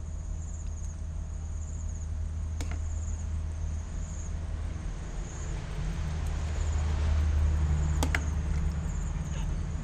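Insects chirping in short high-pitched pulses repeating about once a second, over a steady low hum, with two sharp clicks, one about two and a half seconds in and one about eight seconds in.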